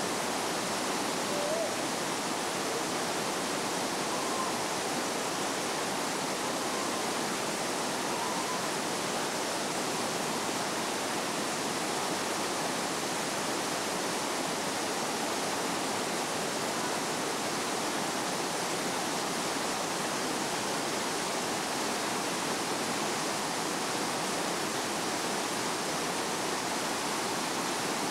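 Water cascading over rocky falls and rapids: a steady, unbroken rush.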